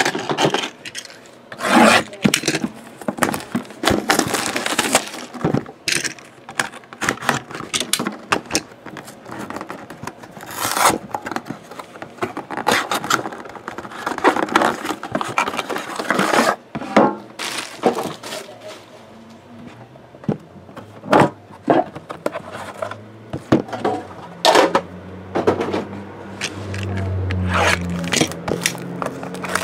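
Cardboard boxes of a hockey card box handled on a table: scraping and sliding of cardboard with many short, sharp knocks and taps as the boxes are lifted, turned and set down. A steady low hum comes in during the last few seconds.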